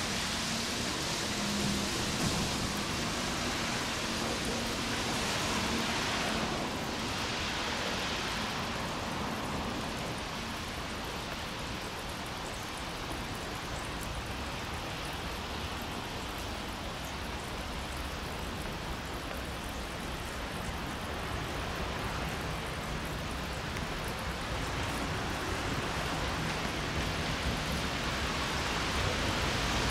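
Steady hiss of light rain, with the faint low hum of an E353 series electric train running slowly along the tracks, growing a little louder near the end as it approaches.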